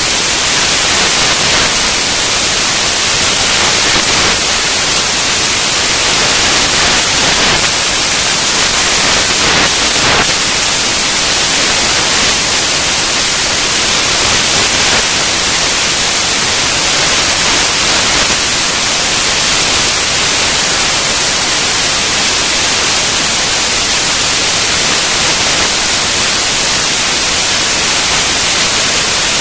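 Loud, steady hiss like static or white noise, even and unchanging, strongest in the high end.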